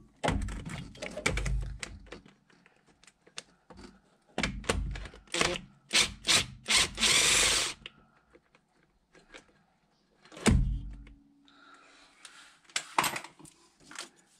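Hand and power tools undoing a tight bolt on a van's gearbox: a run of clicks and metallic knocks, a short power-tool whir about seven seconds in, then a dull thud around ten and a half seconds.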